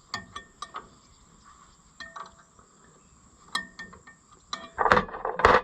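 A wrench clinking and tapping against the metal of an International LB gas engine as a bolt is worked by hand. There are scattered sharp clicks, some ringing briefly, then two louder scraping rasps near the end.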